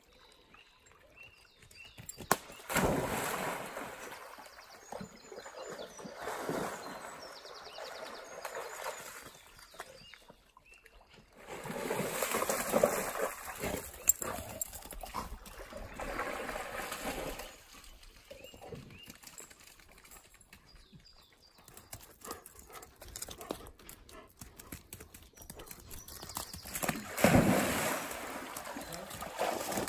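Dogs splashing and swimming through a shallow stream. The splashing comes in a few noisy bursts: one a few seconds in, a longer spell around the middle, and another near the end.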